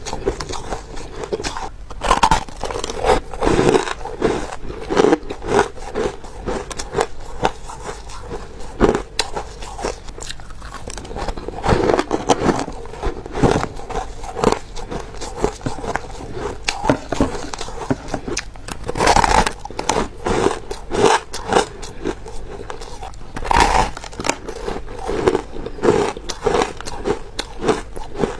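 Person biting and chewing dry, crispy powdered ice: a continuous run of sharp, crisp crunches, with a few louder bites standing out.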